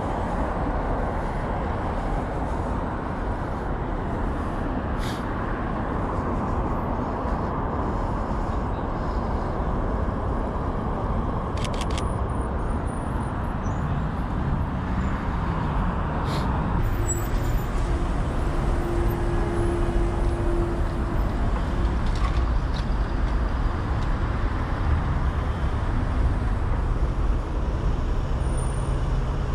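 Street traffic noise: a steady rumble of cars and buses passing on a busy road, with a few short clicks.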